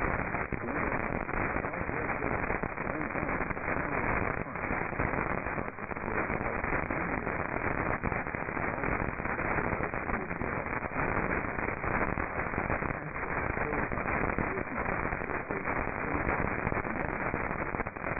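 Radio static: a steady, muffled hiss full of crackles and pops, heard from a receiver between alert broadcasts.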